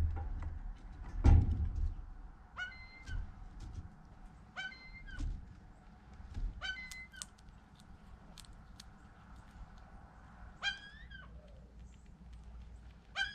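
A heavy thump near the start, then five short, pitched animal calls spaced a couple of seconds apart, with faint clicks in between.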